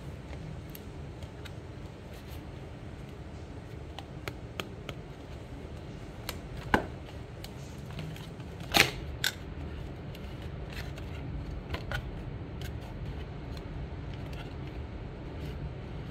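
A cardboard perfume box being handled and opened by hand: scattered light clicks and taps of the packaging, with a sharper click about seven seconds in and the loudest pair around nine seconds, over a steady low background rumble.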